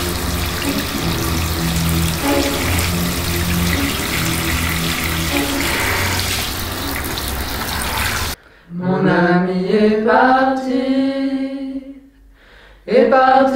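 Water running and splashing down a drain, with sustained music chords under it. About eight seconds in it cuts off abruptly, and a lone voice sings long, sliding notes without accompaniment, with a second phrase near the end.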